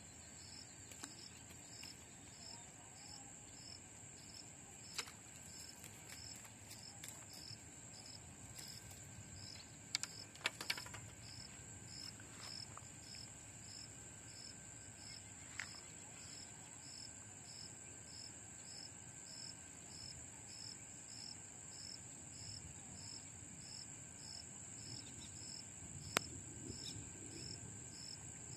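Crickets chirring: a continuous high trill with a regular pulsing chirp about twice a second. A few sharp clicks about ten seconds in and again near the end.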